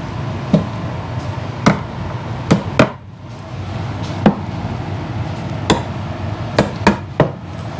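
Claw hammer tapping finishing nails into a wooden beaver-stretching board to tack a pelt down: about nine short, sharp taps at uneven intervals, over a steady low hum.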